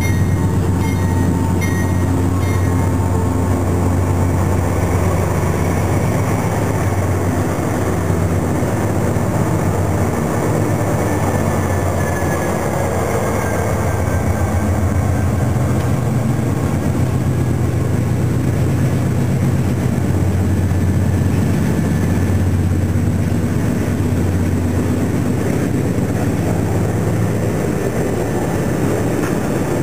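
Diesel-electric freight train passing close by: a GE AC4400CW locomotive rumbles past, then a line of covered hopper cars rolls by with a steady rumble of steel wheels on the rails, with a few clicks at the start.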